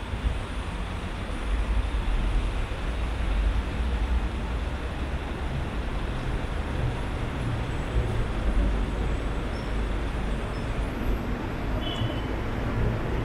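Steady city road traffic noise, with a continuous low rumble of passing vehicles and no distinct single events.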